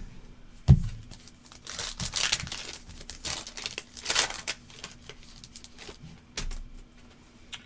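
A trading-card pack wrapper being crinkled and torn open, rustling in a run of bursts for a few seconds, after a single knock on the table just under a second in.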